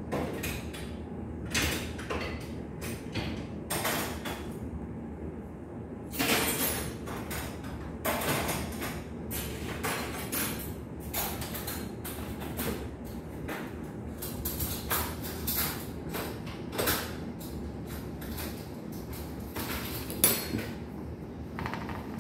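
Fork tines pricking raw pizza dough rounds on a stainless steel table, with irregular taps and scrapes of metal on metal and one sharper knock near the end, over a steady low background noise.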